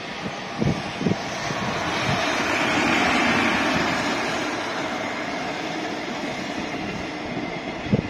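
JR Freight EF210 electric locomotive passing close at speed with its container train: a broad rushing run of motor and wheel-on-rail noise that swells to its loudest about three seconds in as the locomotive goes by, then eases as the container wagons follow. Two sharp thumps sound around one second in.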